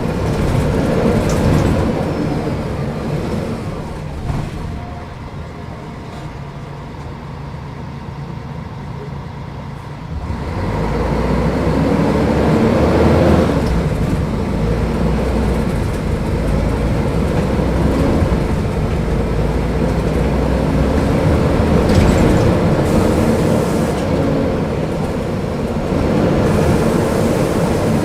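Mercedes-Benz O500UDA articulated bus's diesel engine running. It drops quieter for several seconds, then about ten seconds in pulls away with its note rising and falling through the gears.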